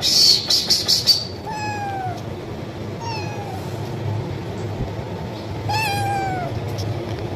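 A kitten meowing for food: a loud, shrill burst of several quick pulses at the start, then three separate meows, each falling in pitch, the last one the longest.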